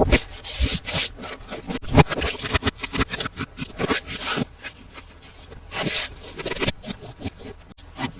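Hands unboxing and handling a toy set, making an irregular run of rubbing and scraping sounds with sharp clicks and taps.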